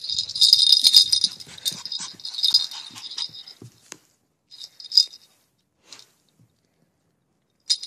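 High metallic jingling and rattling with scuffing and clicks as a puppy plays right against the microphone. It comes in bursts: a long one over the first three and a half seconds, a short one around five seconds in, and another near the end.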